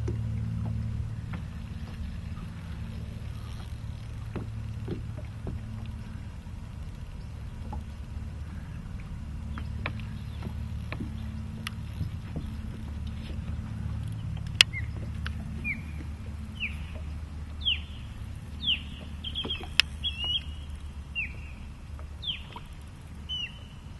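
Steady low rumble of water and wind around a small anchored boat while a fishing reel is worked on a hooked fish, with scattered light clicks. From about halfway on, a run of short falling squeaks comes roughly once a second, with two sharp ticks among them.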